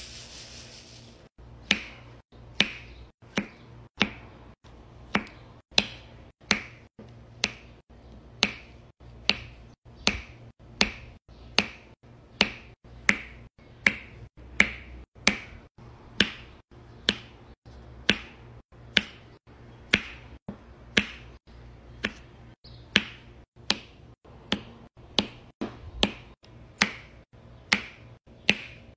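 Diamond-painting drill pen pressing faceted resin drills onto the sticky canvas one at a time: a sharp click with each placement, in an even run of about one and a half a second that starts about a second and a half in.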